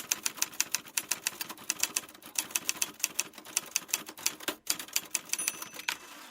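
Typewriter keys clacking in quick, irregular succession, several strikes a second.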